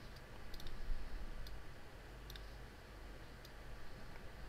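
A few scattered clicks of a computer mouse, over a faint steady low hum.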